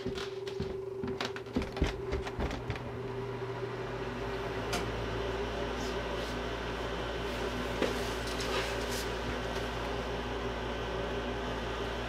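Several sharp clicks, then the draft inducer motor of a 1997 Bryant 93%-efficient gas furnace starts about four seconds in and runs with a steady low hum as the furnace begins its heat cycle.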